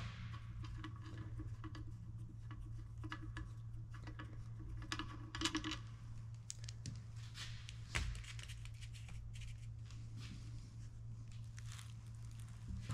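Metal handling on a tractor PTO housing: loosened bolts turned out by hand, with scattered light clicks and clinks and a sharper knock about eight seconds in, over a steady low hum.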